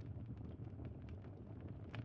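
Campfire crackling: irregular small pops and snaps over a steady low rumble.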